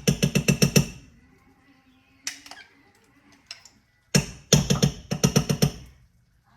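Two quick runs of sharp clacks at about ten a second: a short run at the start and a longer one about four seconds in.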